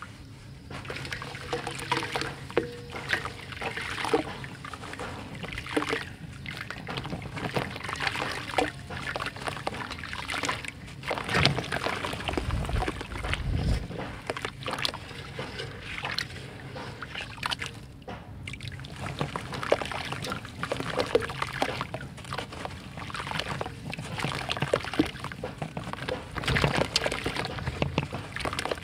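Water sloshing and splashing in a tub as hands dunk, squeeze and crumble a dry red dirt cake, with gritty crackling as the dirt breaks apart in the water.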